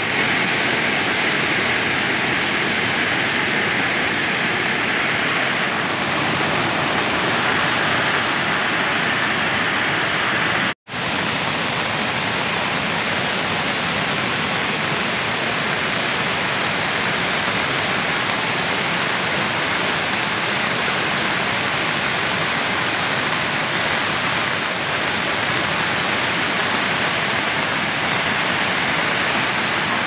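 Waterfall: white water rushing steadily down wide, stepped rock ledges and over a shallow rocky bed. It cuts out for an instant about eleven seconds in, then carries on unchanged.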